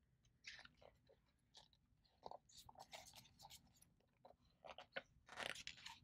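Faint crackling and rustling of a large hardcover picture book's pages being turned by hand, with a louder rustle near the end.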